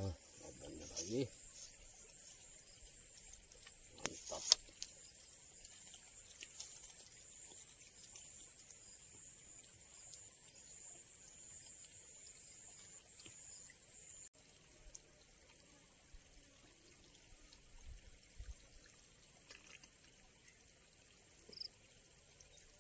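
Steady high-pitched chirring of insects in the surrounding vegetation, which drops suddenly to a fainter level about fourteen seconds in. A single sharp click about four and a half seconds in.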